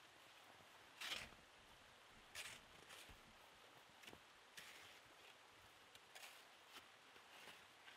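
A small shovel scraping and scooping snow in a series of faint, short, rasping strokes, about one a second.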